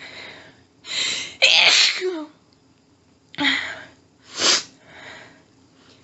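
A woman's very strong sneezes in an allergic sneezing fit. A hitching in-breath builds to a loud sneeze about a second and a half in, then two shorter, sharp sneezes come about a second apart, with panting breaths between.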